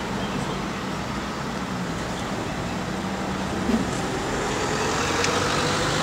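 Road traffic: a motor vehicle running by on the street, its engine note rising in pitch over the last couple of seconds.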